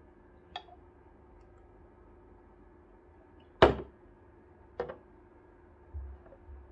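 Stainless milk jug and glasses being set down on a countertop: a light click, one sharp knock a few seconds in, another click, then a couple of dull thuds near the end, over a faint steady hum.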